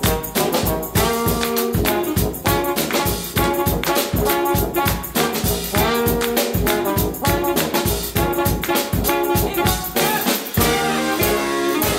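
New Orleans-style funk brass band playing: trombone, trumpet, saxophone and sousaphone lines over a drum kit keeping a steady beat.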